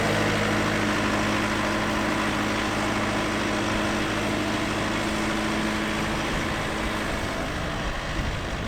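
Off-road 4x4's engine running at steady revs, its note fading away about seven seconds in.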